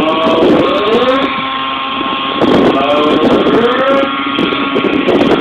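Radio-controlled helicopter's engine and rotor blades running hard through 3D aerobatics, the pitch repeatedly rising and falling as the rotor is loaded and unloaded.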